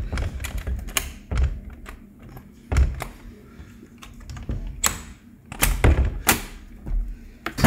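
Irregular knocks and low thuds, a sharp one about every second or so: footsteps on wooden decking.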